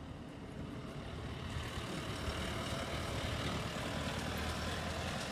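Farm tractor engine running with a steady low hum, getting gradually louder as it approaches.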